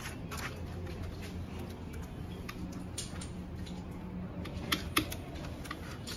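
Light metal clicks and ticks, with two sharper knocks close together near the end, as hands unfasten a Brock's slip-on exhaust silencer from a Suzuki Hayabusa.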